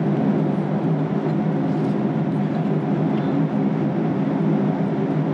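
Steady cabin noise of a jet airliner in flight: the even rush of engines and airflow, strongest low down, with no breaks or changes.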